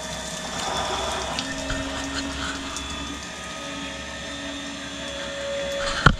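Eberspacher D9W diesel water heater running steadily at full heat on a test rig, its combustion fan and burner giving a steady rushing noise with faint humming tones. A sharp knock near the end.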